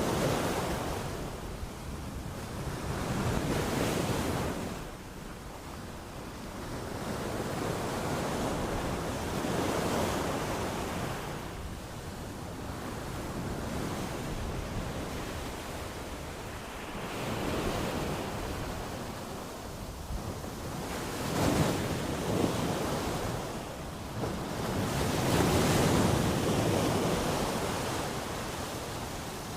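Ocean surf rolling in, the wash swelling and easing every four to seven seconds over a steady hiss of water.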